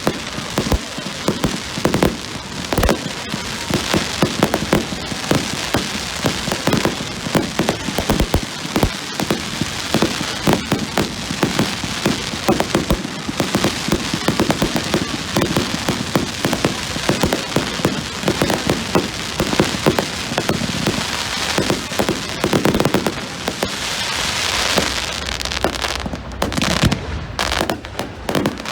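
Fireworks going off in a dense, continuous barrage of crackling pops, many close together like a crackle-effect firework.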